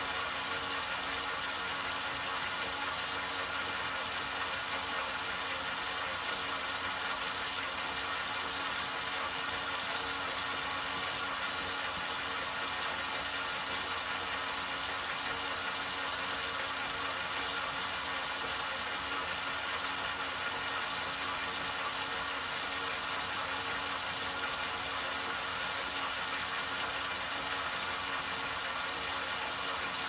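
An enMotion paper towel dispenser's motor running steadily: an even, unchanging hum with no stops or changes in pitch.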